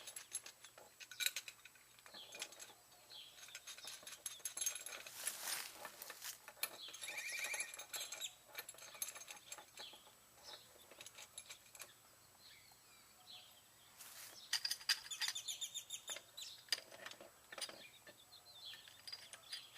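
Wrenches clinking and scraping on a brass outdoor faucet, in irregular metal clicks and ticks, as one wrench holds the faucet body while the other works the top nut loose. The clicking comes in two busier bouts, one in the middle and one later on.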